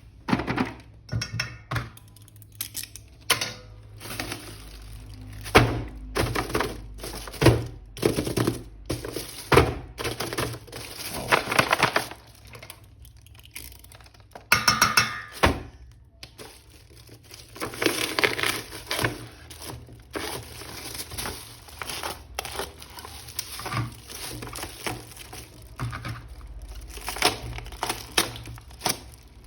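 Plastic toy packaging being handled and opened: irregular crinkling with scattered knocks and clicks.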